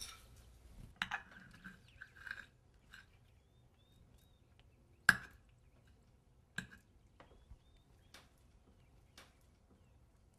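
Sparse clinks, taps and scrapes of cutlery on crockery at a meal: a knife scraping on a plate in the first couple of seconds, then a few single sharp clicks, the loudest about five seconds in.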